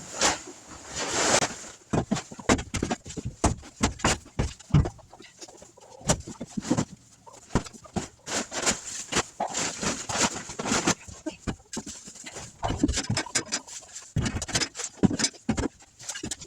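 Hens clucking, over irregular knocks and scrapes from digging a drainage outlet through waterlogged ground.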